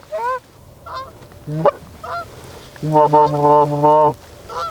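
Goose call blown by a hunter to call in geese: two quick runs of rapid clucking honks, with single rising honks between them.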